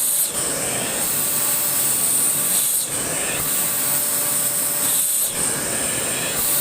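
Electric air blower running steadily, blowing dust and carbon out of a gas boiler's burner, with a brief change in its sound about every two and a half seconds.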